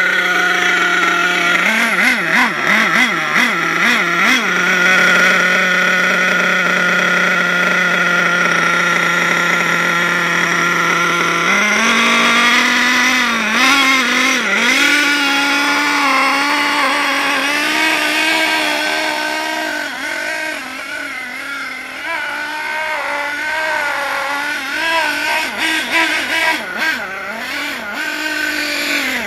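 Nitro engine of a Hot Bodies Lightning GT RC car running at a steady, high pitch with brief wobbles, then stepping up to a higher, wavering speed about twelve seconds in. It is running rough during carburettor tuning and sounds terrible.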